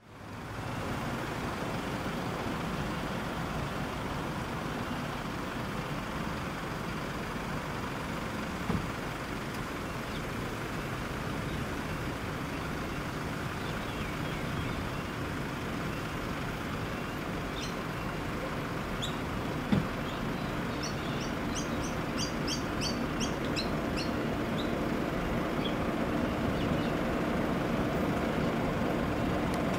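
A lash-up of several EMD diesel-electric locomotives running steadily as they approach, growing louder toward the end. Birds chirp from about 18 to 24 seconds in, and there are two brief sharp knocks.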